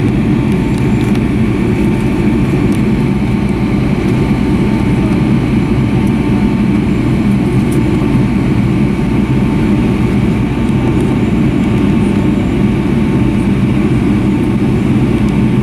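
Cabin noise inside a Boeing 757-200 taxiing: the jet engines' steady low rumble at taxi power, with a thin steady whine above it.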